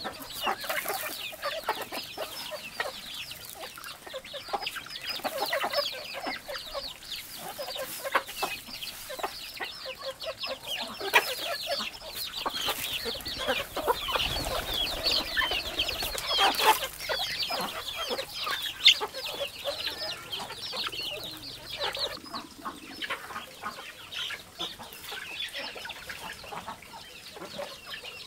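A flock of domestic chickens clucking busily and without a break as they feed on scattered grain, with many short, high calls overlapping.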